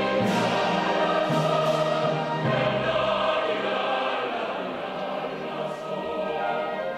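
Background choral music: voices singing sustained chords with instrumental backing, easing slightly in loudness in the second half.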